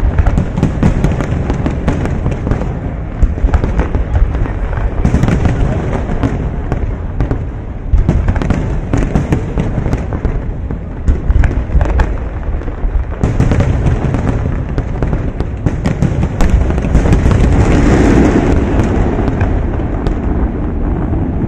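Large aerial fireworks display: a continuous barrage of booms and crackling bursts, many shells exploding in quick succession.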